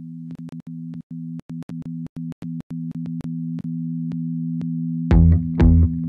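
Electronic background music: a steady low synthesizer drone of two held tones, chopped by short gaps that click. About five seconds in, a full beat with bass and drums comes in, much louder.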